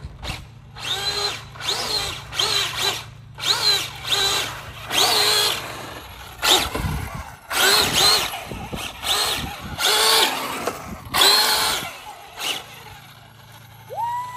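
Electric RC car's motor whining in a quick series of short throttle bursts, more than a dozen, about one a second, each rising in pitch and dropping away again.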